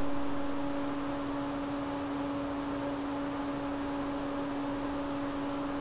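A steady hum, one even tone with a fainter tone above it, over a low hiss; it eases slightly in level during the first second and then holds steady.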